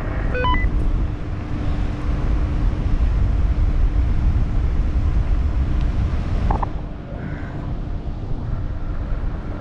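Wind buffeting the microphone as a paraglider is towed aloft: a loud, steady rumble with a faint hum under it, dropping off suddenly about seven seconds in.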